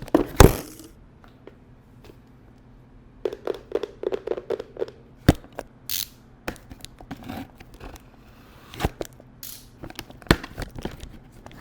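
Cardboard blind box and its packaging being opened by hand: irregular taps, clicks and tearing and crinkling sounds, loudest right at the start and busiest about three to five seconds in.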